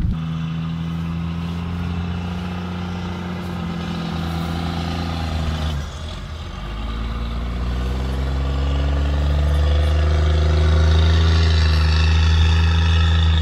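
A motor vehicle's engine running with a steady low hum. About six seconds in it dips briefly, then rises in pitch and runs louder and steady, as when an engine is revved up and held.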